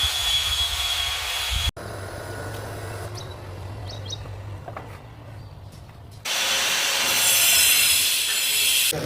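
Construction-site work noise, in abrupt segments: a loud, even hissing noise that cuts off about two seconds in, then a quieter stretch with a low steady hum. About six seconds in, a loud hissing noise starts again suddenly.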